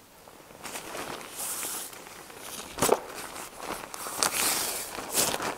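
Rustling of a camouflage fabric survival bag being shaken out and spread on a foam sleeping mat, mixed with footsteps on the forest floor. A sharp crack about three seconds in is the loudest sound.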